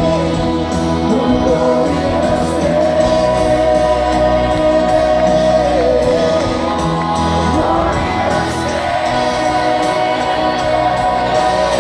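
Live Christian rock band playing: a male lead singer holds long sung notes over drums and violin, with a steady cymbal beat.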